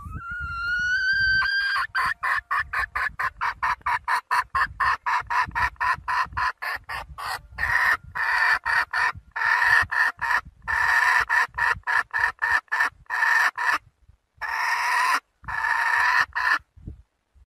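Young red junglefowl hen calling to a cock: a rising pitched note, then a fast run of short clucks about four a second, ending with two longer drawn-out calls.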